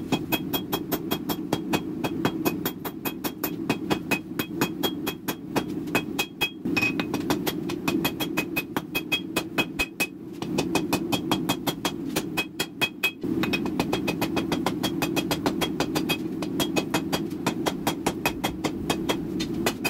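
Hand hammer forging a red-hot steel sword billet on an anvil: rapid blows, about four a second, each with a ringing clang, in runs broken by a few short pauses. A steady low roar runs underneath.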